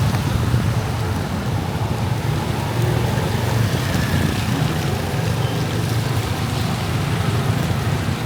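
Steady road noise from riding a motorbike on wet streets in rain: a low rumble with an even hiss over it, with wind on the microphone.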